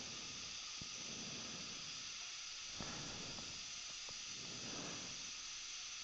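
Steady faint hiss, with a few soft clicks about one, three and four seconds in.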